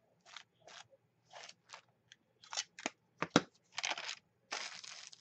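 A handheld ink-blending pad swiped and scrubbed over crinkled notebook paper in a string of short, scratchy strokes, with two sharp taps a little past three seconds in.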